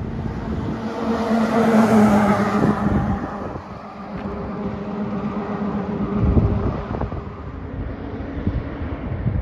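Fire apparatus driving past: engine drone and tyre noise swell to a peak about two seconds in, then fade. Quieter road traffic follows, with a single thump about six seconds in.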